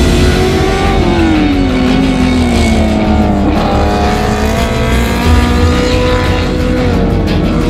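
A 1000 cc racing superbike's engine passing through a corner: its pitch drops for about two seconds as the rider comes off the throttle and brakes, then rises as it drives out and settles into a steady high run. Music plays underneath.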